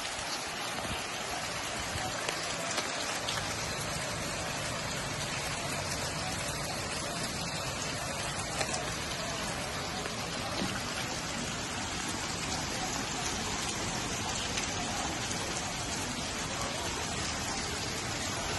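Steady rain falling on standing floodwater, with a few sharper drop hits now and then.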